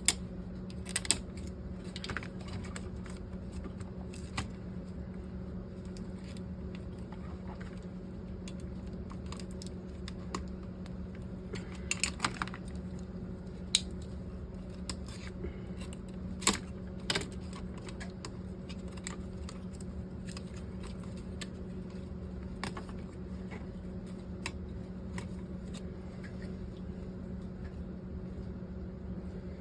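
Scattered small clicks and taps of plastic and electronic parts being handled while a car stereo's faceplate and LCD circuit board are worked on, over a steady low hum.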